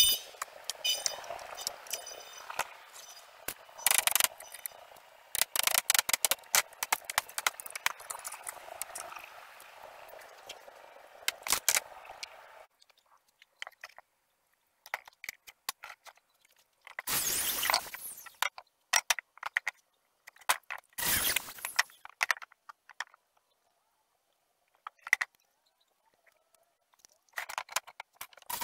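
A claw hammer knocking and prying old nails out of a weathered reclaimed board: irregular sharp metal-on-wood knocks and scrapes. The sound then cuts out, and two short clattering bursts follow as the boards are handled.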